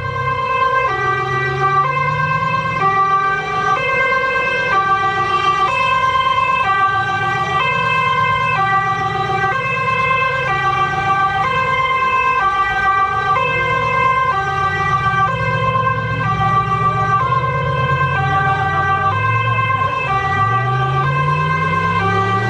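Police car siren sounding a steady two-tone pattern, high and low alternating about every three-quarters of a second. Under it a car engine rumbles and rises in pitch near the end.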